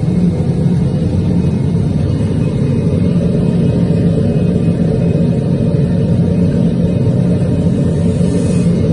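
Hydraulic power unit of a gravity die casting machine running steadily, its electric motor and pump making a low hum as they drive the machine's hydraulic cylinder.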